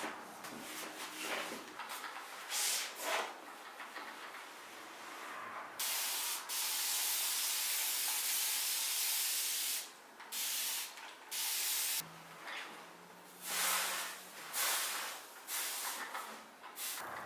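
Fine-mist water spray bottle dampening a shirt for ironing: one long continuous hiss of spray lasting about four seconds, followed by several short hissing bursts.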